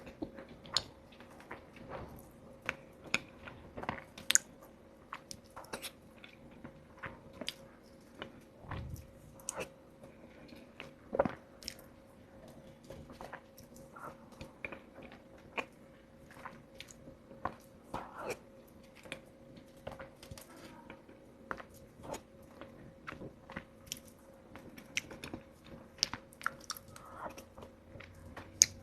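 Close-miked eating of soft matcha lava cake: wet chewing and lip smacks with many short, irregular clicks.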